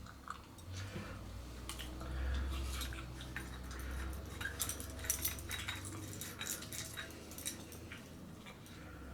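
Small metal parts of a lightsaber hilt and its timing shims being handled and fitted, giving scattered light clicks and clinks, with a low rumble of handling in the first few seconds.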